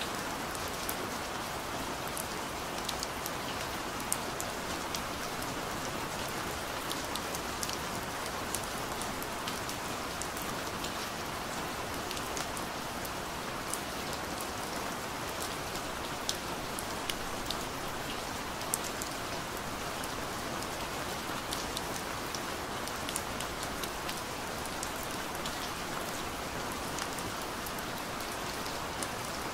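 Steady rain falling on a surface, an even wash of noise with many scattered sharp drop ticks.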